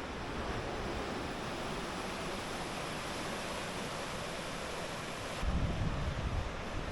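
Steady hiss of surf washing on the shore. About five seconds in, wind buffets the microphone with an uneven low rumble.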